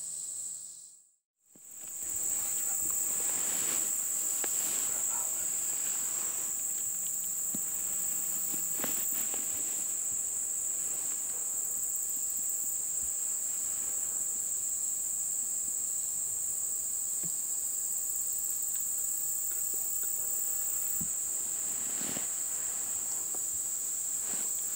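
Late-summer insect chorus of crickets or katydids: a steady, high-pitched, finely pulsing drone that dips out briefly about a second in and then carries on unbroken, with a few faint clicks.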